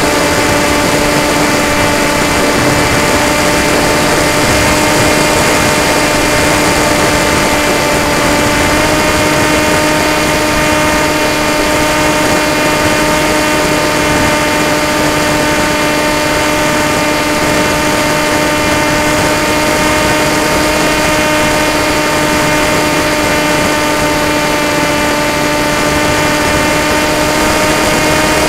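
FPV quadcopter's electric motors and propellers whining at a steady pitch over a rushing hiss of airflow, as heard from the onboard camera in flight.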